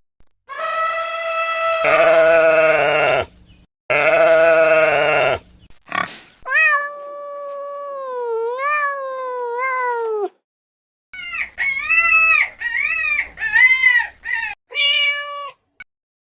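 A string of separate drawn-out animal calls, in the manner of bleats and meows: two long calls that waver in pitch in their second half, then a long call sliding up and down, then a run of shorter calls and a brief higher one near the end.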